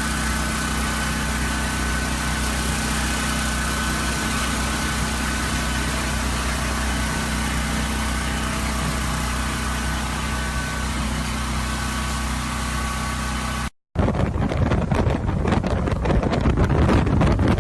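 An engine running steadily with a constant low hum under a broad hiss. It stops abruptly near the end, and after a short gap wind gusts buffet the microphone.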